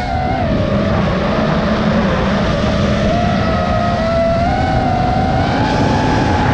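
The brushless motors and propellers of a TBS Source One FPV quadcopter whine steadily in flight. The pitch dips briefly about half a second in, then climbs gradually, over wind rushing across the onboard camera's microphone.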